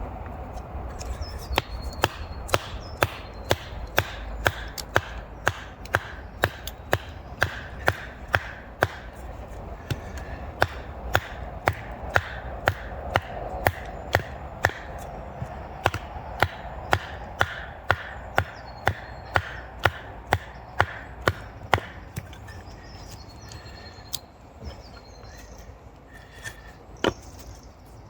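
Repeated sharp wooden knocks of a bushcraft knife being batoned through firewood, the baton striking the blade's spine about twice a second for some twenty seconds, then a few slower strikes near the end.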